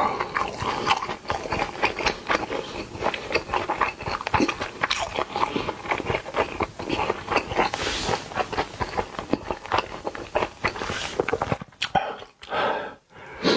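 Loud chewing of a full mouthful of Korean mixed rice: a dense run of quick mouth clicks that thins out into short gaps near the end.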